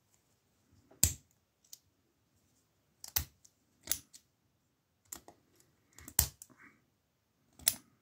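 Brass Lockwood padlock clicking sharply as it is picked open and handled: a loud click about a second in, then several more scattered clicks.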